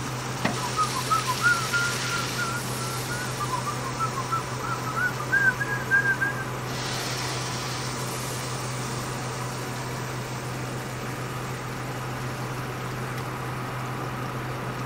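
A person whistling a wavering tune for about six seconds, then stopping, over a steady low hum.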